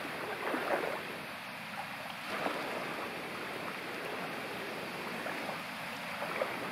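Small waves washing and lapping in shallow water at the shoreline, with wind rushing over the microphone and a few brief swells of the wash.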